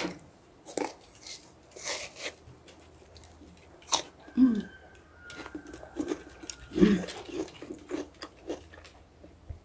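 A person chewing bites of a soaked (pickled) apple close to the microphone: irregular crunching and wet mouth sounds, a few seconds apart.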